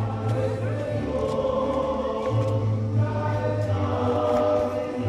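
Mariachi music with voices singing held lines over steady bass notes, played as the entrance song of the mass.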